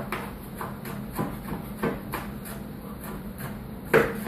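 Knife chopping a sweet pepper on a cutting board: irregular short knocks with a louder knock near the end, over a steady low hum.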